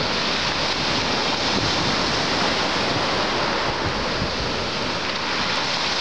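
Black Sea surf breaking along the shore: a steady, unbroken wash of waves, with wind rumbling on the microphone.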